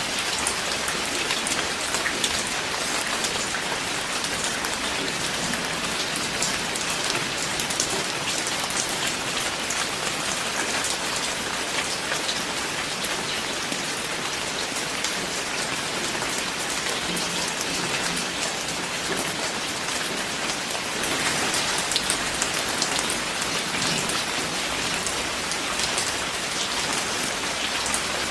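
Steady rain falling on a hard surface: an even hiss with many sharp individual drop hits pattering through it.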